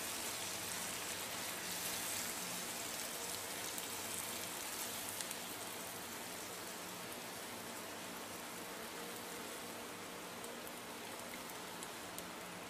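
Stir-fried beef and Chinese broccoli sizzling softly in a hot wok with the heat turned off, the hiss slowly dying down as the pan cools. A few faint clicks of a spatula.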